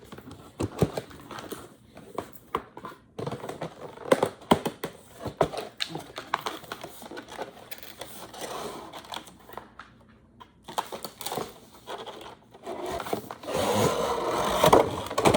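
Cardboard box and packaging being handled and emptied by hand: scattered knocks and light scrapes, with a longer stretch of scraping and rustling near the end.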